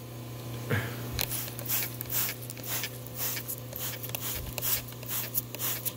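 Trigger spray bottle squirting leak-detection soap solution onto freshly brazed copper refrigerant joints, a quick run of short hissy sprays about three a second, starting about a second in. This is the bubble test for leaks on the repaired line under pressure. A steady low hum runs underneath.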